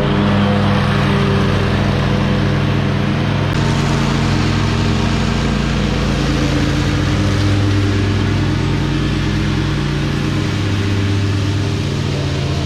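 Engine of an Exmark Radius zero-turn mower running steadily at working speed while it works through fallen leaves.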